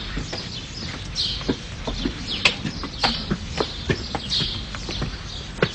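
Footsteps of two people walking on a street, shoes clicking irregularly several times a second, with birds chirping in the background.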